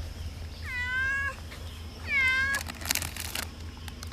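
A cat meowing twice in short calls, followed about three seconds in by a brief noisy burst.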